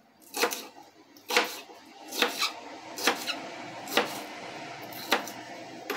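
Kitchen knife dicing a green bell pepper on a plastic cutting board: about nine sharp knife taps against the board at an uneven pace, roughly one a second, some coming in quick pairs.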